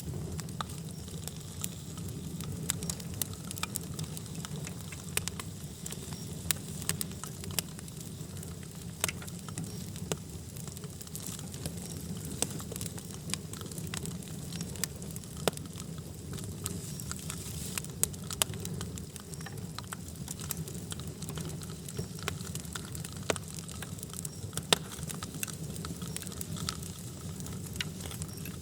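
Wood fire burning with a steady low rumble and frequent irregular crackles and pops.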